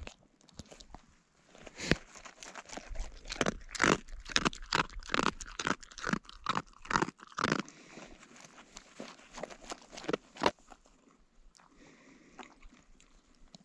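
Close, sharp crunching in an irregular run of several a second, like something hard being chewed; it stops about ten seconds in.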